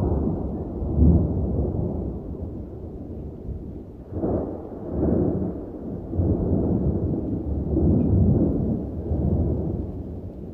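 Deep rolling rumble that swells and fades in waves: loudest about a second in, dipping around four seconds, then building again in several surges.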